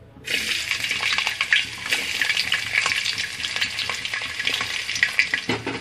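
Sliced garlic cloves dropped into hot cooking oil in a pot, sizzling suddenly about a quarter second in, then frying with a steady crackling sizzle.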